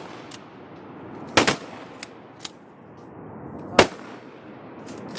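Duck hunters' shotguns firing a volley: a close pair of loud blasts about a second and a half in and another near four seconds, with fainter shots in between.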